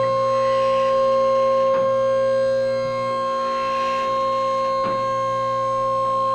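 Electric hydraulic pump of a two-post vehicle lift running with a steady whine as it raises the car, with a click from the lift's safety locks about every three seconds.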